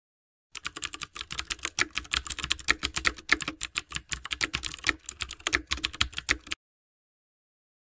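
Computer keyboard typing sound effect: a fast, unbroken run of key clicks that starts about half a second in and stops suddenly about a second before the end.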